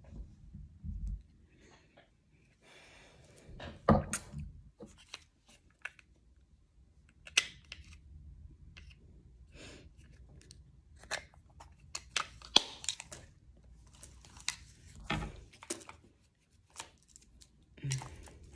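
Irregular clicks, taps and light rustles from a plastic makeup powder compact being handled close to the microphone, long acrylic nails clicking against its case. The loudest clicks come about four seconds in and again near the middle.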